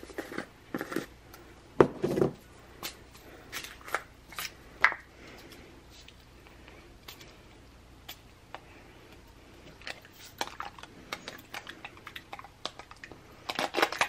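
Clicks, taps and crinkling from a new plastic container of candy sprinkles being pried open, coming in irregular clusters with a quieter spell in the middle.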